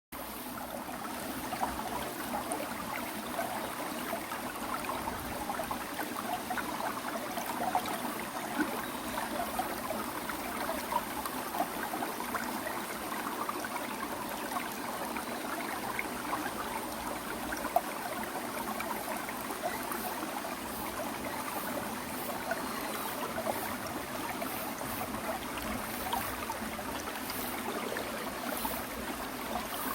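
Rushing water: a steady flowing rush with small splashes scattered through it.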